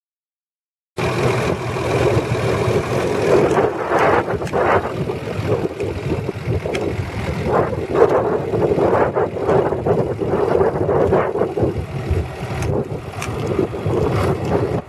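A John Deere 4430's six-cylinder turbo diesel engine running, with heavy wind buffeting the microphone in gusts. The sound starts suddenly about a second in.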